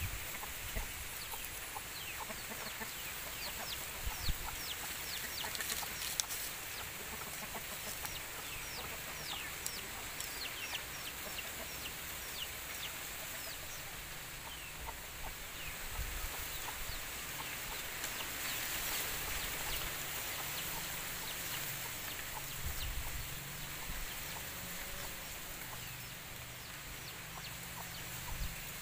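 Chickens clucking, with many short, high, falling chirps through roughly the first half, over a steady high hiss.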